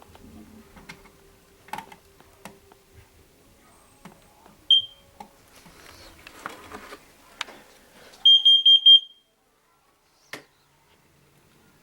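Household safety alarm under test: one short high chirp, then a few seconds later a quick run of about five loud, high-pitched beeps. Scattered knocks and handling noises come before the beeps.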